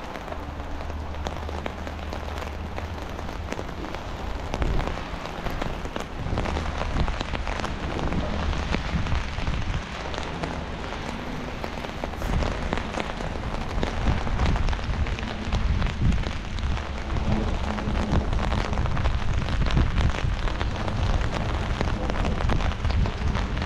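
Rain falling on an umbrella canopy held overhead, a dense patter of small drop hits, with wind gusts rumbling on the microphone that swell and ease.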